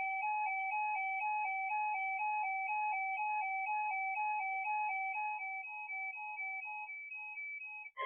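Electronic alert tone from an Emergency Alert System decoder, a warbling hi-lo tone that flips rapidly between two pitches several times a second and fades slightly near the end.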